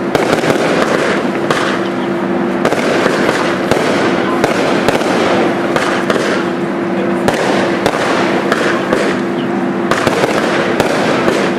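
Fireworks cakes firing in quick succession: a dense run of sharp bangs from bursting shots over a continuous crackle.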